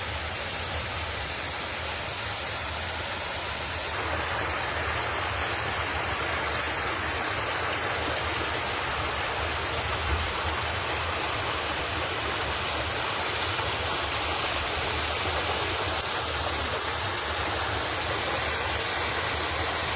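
Creek swollen with floodwater after heavy rain, rushing steadily. It grows a little louder about four seconds in.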